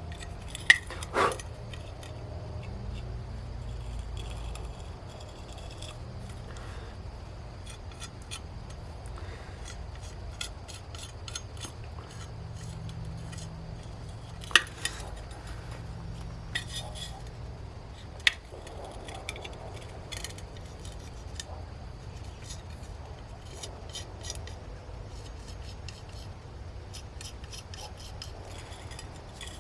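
Small metal clinks, taps and scrapes of steel hand tools and workpiece being handled, with a few sharper knocks, over a steady low hum.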